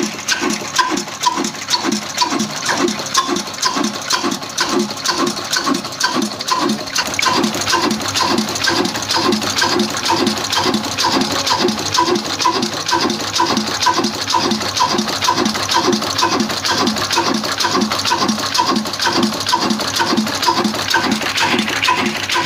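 Old single-cylinder horizontal diesel oil engine with a large flywheel, running steadily under way, its exhaust beating evenly about two and a half times a second.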